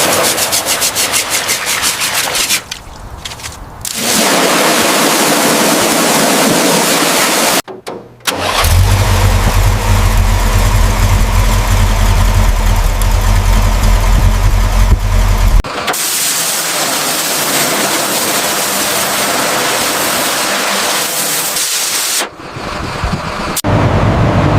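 A Toyota car engine turning over with rapid even ticks, then running with a steady low hum, in several clips cut together so the sound changes abruptly a few times.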